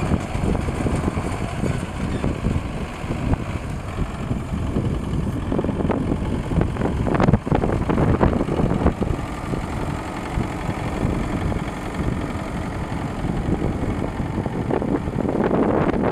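Tractor engine running steadily, with a brief knock about seven seconds in.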